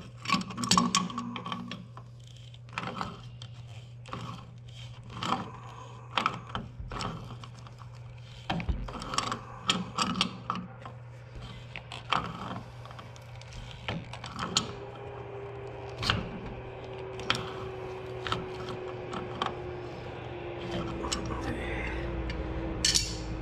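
Metal clicks and taps of channel-lock pliers working on a black iron pipe elbow on a lawn mower's oil drain, in irregular runs of sharp clicks. A faint steady hum comes in about fourteen seconds in and slowly sinks in pitch.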